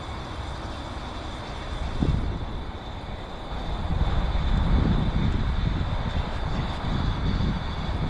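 Low rumble of an aircraft passing overhead, growing louder past the middle, with a brief thump about two seconds in.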